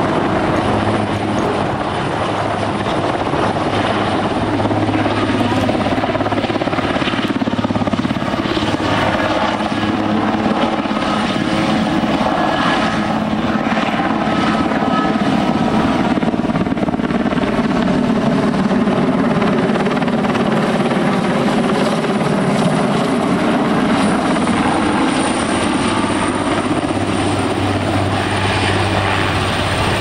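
Aérospatiale AS332 M1 Super Puma, a twin-turboshaft military helicopter, flying overhead: continuous loud rotor and turbine noise. Its tones slowly slide down and back up as it passes and manoeuvres, and the low rotor throb fades in the middle and comes back strongly near the end.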